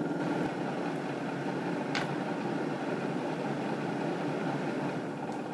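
Countertop blender running steadily on low speed, its motor whirring as it blends a cherry mixture with sparkling water.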